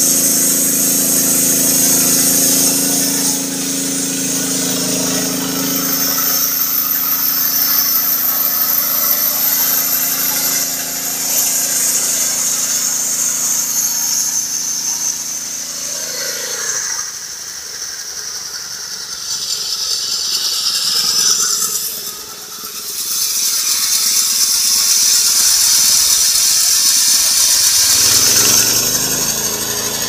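Homemade sawmill driven by a small petrol engine, running and cutting a log, with a loud high hiss from the blade in the wood over a steady engine note. The engine note fades after about halfway and comes back near the end while the hiss carries on.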